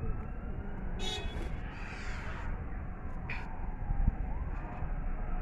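Emergency-vehicle siren wailing faintly in the distance, its pitch slowly rising and falling, over a steady rumble of traffic.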